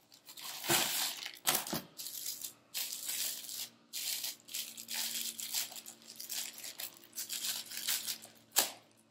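Packaging handled as a turntable platter is unwrapped: a cardboard sleeve opening and a plastic bag crinkling in irregular bursts, with one sharper, louder noise near the end.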